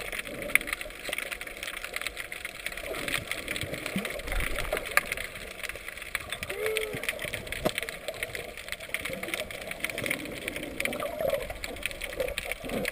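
Underwater sound as picked up by a submerged camera: a steady crackling hiss of water full of fine clicks, with a short muffled rising-and-falling hum about seven seconds in.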